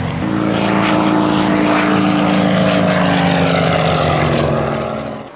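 Single-engine piston propeller aircraft flying overhead, its engine running loud and steady with the pitch sinking slightly as it passes. The sound cuts off shortly before the end.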